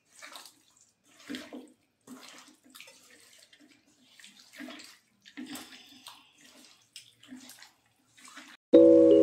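Wet, irregular squelching and squishing of a hand kneading raw chicken pieces in a thick spice marinade in a steel bowl. Near the end, music with bell-like mallet notes starts abruptly and is louder than the squelching.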